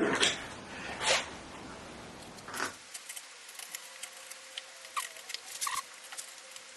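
Light clicks, taps and rustles of tools and wood being handled at a workbench. A low background noise cuts off suddenly about three seconds in, leaving only scattered small ticks.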